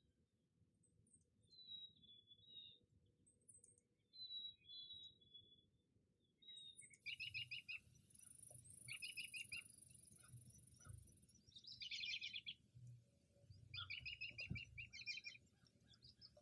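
Small birds calling faintly. For the first few seconds there are short, high, separate notes. About halfway through, the background changes abruptly, and several runs of quick repeated notes follow, each about a second long, with a single knock near the end.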